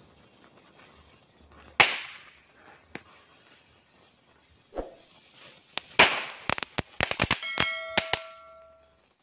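Assorted small firecrackers going off one after another along a row: a sharp bang about two seconds in, a few smaller pops, then a fizzing burst and a rapid string of cracks near the end, with a brief ringing tone among the cracks.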